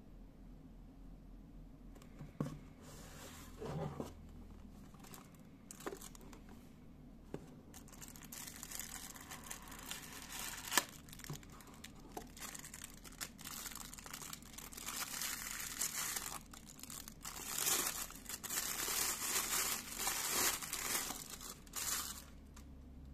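A cardboard watch box being opened and handled, with a few light knocks, then a thin plastic bag crinkling as a watch is unwrapped from it. The crinkling is loudest in the second half.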